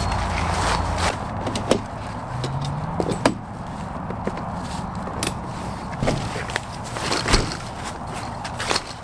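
Folding camp cot being assembled: its metal poles and frame knock and click into place at irregular intervals, over rustling of the fabric bed and dry grass.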